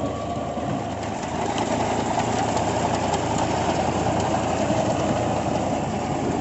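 Al Ghazi tractor's diesel engine running steadily under load, driving a PTO-powered wheat reaper through the standing crop; it grows a little louder about a second in.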